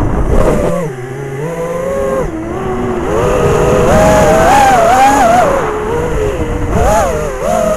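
FPV quadcopter's four 2306 2750 kV brushless motors spinning 5-inch 5040 props, whining in a pitch that drops about a second in, then climbs and wobbles up and down as the throttle changes, heard from the onboard camera.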